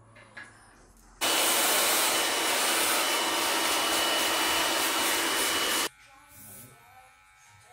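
BaByliss Pro hair dryer blowing loudly for about four and a half seconds: it switches on abruptly about a second in and cuts off just as suddenly, a steady rush of air with a faint high whine over it.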